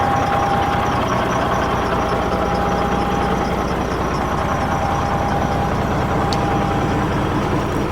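Heavy diesel engine idling steadily, with a faint steady whine over it that stops about seven seconds in.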